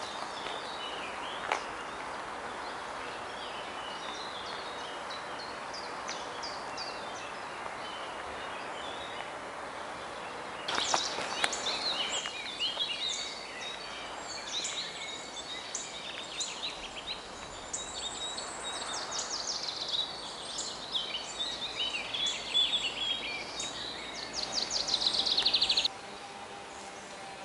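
Spring woodland ambience: many songbirds calling over a steady hiss of wind in the leaves, with a single footstep on a dirt path about a second and a half in. About ten seconds in the birdsong becomes denser and louder, and it ends with a loud fast trill that cuts off suddenly near the end.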